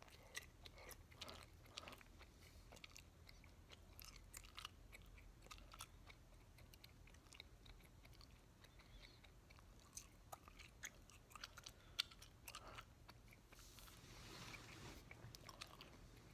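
Faint wet clicks and smacks of a mouth chewing a large wad of bubblegum, three pieces of Bubbaloo Tutti Frutti, with a soft breathy hiss near the end.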